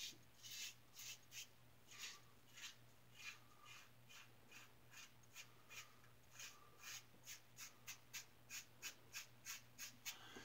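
3D-printed injector razor with a Schick injector blade cutting stubble on the neck and chin in short, faint, scratchy strokes, about two to three a second, during the final reduction pass of a wet shave.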